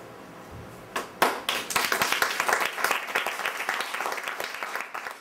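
Audience applause: after a moment of quiet, a few first claps about a second in, then many hands clapping together.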